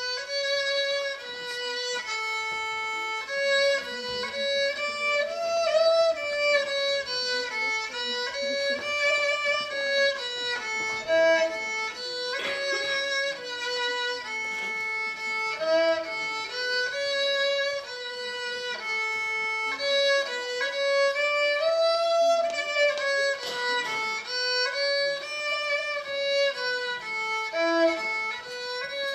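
A child playing a simple tune on a solo violin, one bowed note after another.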